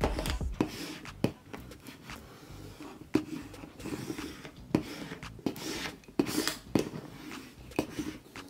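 Transfer tape being burnished over cut vinyl lettering on a cardboard box with a small hand tool: quick, irregular scratchy rubbing strokes with small clicks and taps.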